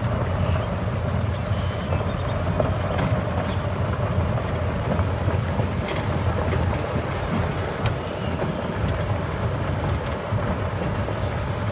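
A small vehicle driving steadily along a dirt road: even, low rumble of motor and tyres, with some wind on the microphone.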